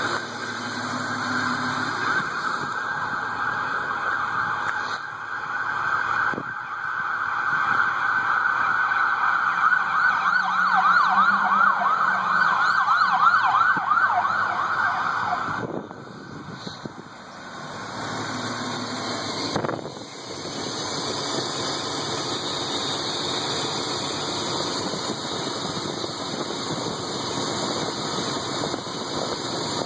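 BMW E36 325i's straight-six engine idling, with a loud whine over it for about the first fifteen seconds. The whine wavers and sweeps rapidly up and down in pitch toward its end, then stops abruptly, leaving the idle.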